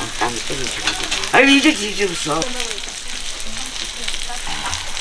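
Oil sizzling steadily on a flat griddle as dongeurang-ttaeng (small Korean meat-and-vegetable patties) and mung bean pancakes fry. Short bits of voice come in over it, loudest about a second and a half in.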